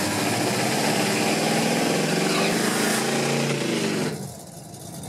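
Classic Ford Mustang fastback drag car's engine running loud at high revs, its pitch wavering up and down. About four seconds in the sound drops suddenly to a much quieter level.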